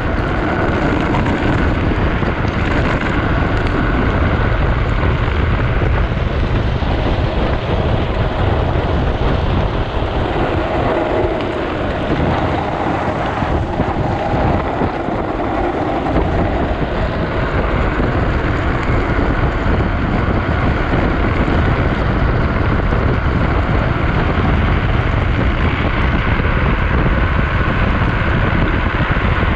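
Steady rush of wind buffeting the microphone of a camera mounted on a drift trike speeding downhill, mixed with the rumble of its wheels on wet asphalt. The low rumble eases briefly about halfway through.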